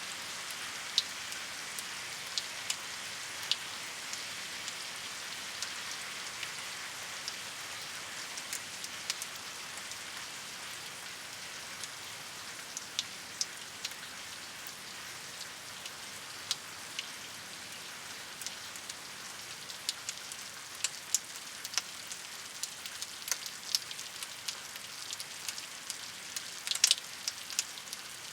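Steady rain falling, an even hiss with scattered sharp drops striking close by; the close drops come more often in the second half.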